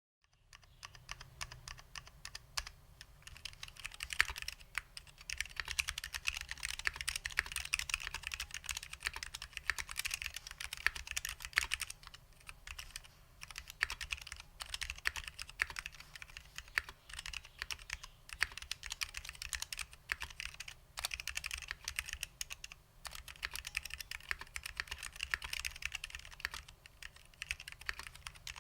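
Continuous fast typing on a Bakeneko60 custom keyboard with SKCL Green Alps switches, lubed with dry lube, under vintage doubleshot keycaps: a dense stream of key clacks with a couple of short pauses past the middle.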